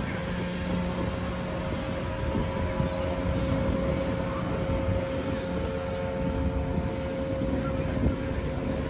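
Steady engine drone of a light propeller aircraft flying over the water, holding one even pitch, over the hiss of wind and beach noise.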